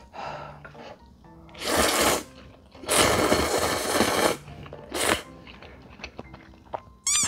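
Loud slurping of spicy ramen noodles and broth from a bowl: three slurps, the middle one the longest at about a second and a half. Near the end, a short squeaky sound effect with a wavering pitch, over faint background music.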